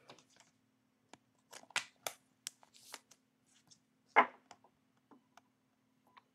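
Trading cards being handled, with scattered light rustles and clicks as the cards slide and tap against one another and a sharper snap about four seconds in.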